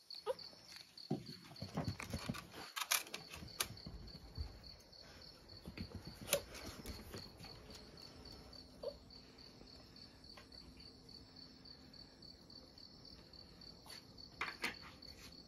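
Crickets chirping in a steady, high pulsing trill of about four pulses a second. Scattered sharp clicks and knocks sound over it, most in the first few seconds and again near the end.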